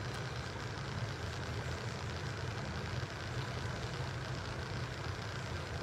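Steady low hum with an even hiss over it, without a break: the background noise of a large hall.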